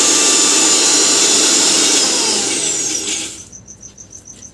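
Electric kitchen mixer grinder running steadily, then switched off about three seconds in and winding down.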